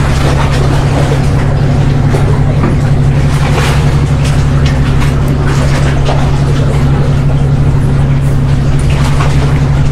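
A loud, steady low mechanical hum, like an engine running at constant speed, with no change in pitch or level.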